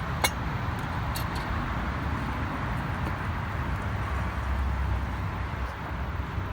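Steady low rumble and hiss of outdoor background noise, with a sharp click near the start and a fainter one about a second in.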